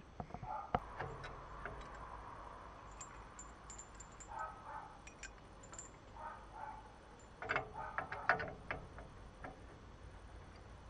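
Scattered light metallic clinks and rattles of a chain and shackle being handled on a sickle-bar mower's lifting linkage, with a tight cluster of clinks about three-quarters of the way through.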